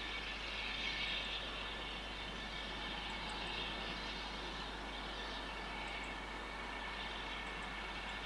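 Steam hissing steadily from a standing Robert Stephenson steam tank locomotive, swelling and easing a little.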